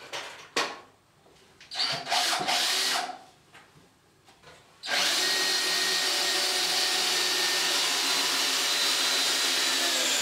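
Cordless drill-driver driving a long wood screw up into 3x2 softwood timber. There is a short burst about two seconds in, then one steady run through the second half.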